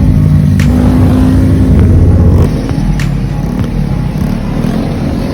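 Honda Grom's small single-cylinder motorcycle engine running hard under throttle. It drops in level about two and a half seconds in, then the pitch rises and falls as the throttle is worked.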